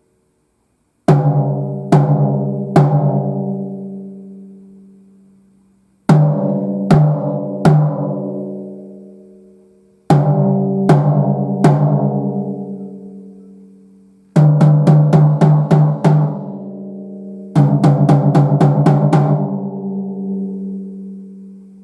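Snare drum with an Evans single-ply coated batter head being struck: three sets of three single hits about a second apart, each left to ring out with a long pitched ring, then two quick runs of about seven strokes.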